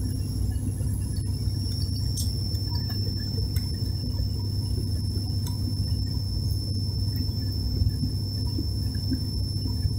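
Cabin noise inside an ATR 72 turboprop airliner on approach: a steady low drone of the propellers and engines over a rumble, with a thin high-pitched whine running alongside.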